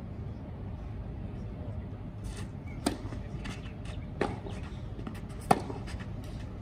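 Tennis rackets striking the ball in a rally: three sharp hits about a second and a quarter apart, starting near the middle, the last one the loudest, with fainter ticks of ball bounces between them over a steady low background hum.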